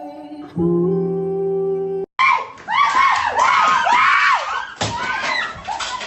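A tune with a long held note breaks off suddenly. After the cut comes a high-pitched voice crying out over and over, each cry rising and falling in pitch several times a second.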